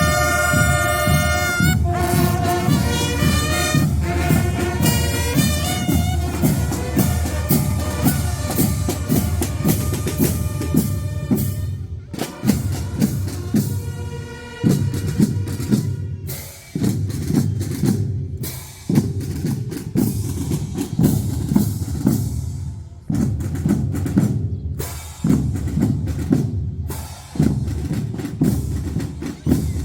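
Fanfare band playing: brass notes in the first couple of seconds, then bass drum and snare drums beating a marching cadence, which from about twelve seconds in comes in short phrases with brief breaks between them.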